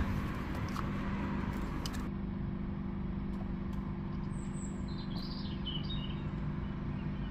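Steady low mechanical hum, with wind rushing on the microphone that cuts off about two seconds in. A small bird chirps several times about four to six seconds in.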